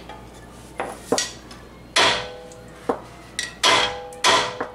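Hammer blows on steel, each strike ringing, driving the new lower control arm's ball joint stud up into the steering knuckle socket. A couple of lighter taps about a second in, then heavier blows coming closer together toward the end.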